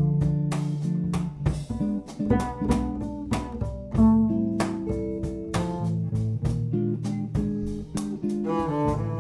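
Jazz trio music: guitar and double bass playing together over drums, which tap out frequent sharp strokes.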